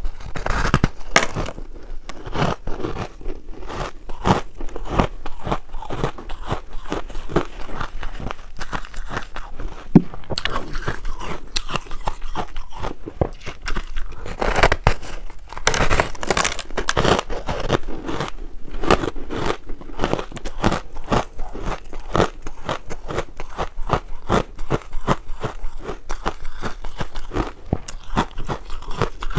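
Teeth biting and crunching through a frozen slab of pink ice, chewing the pieces in rapid, dense crackles. Heavier bites come at the start and again about halfway through, and there is one sharp crack about ten seconds in.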